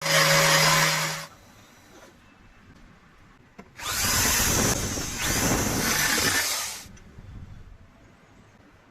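A power tool runs in two bursts: about a second at the start with a steady hum, then about three seconds from about four seconds in. Between the bursts it is quieter.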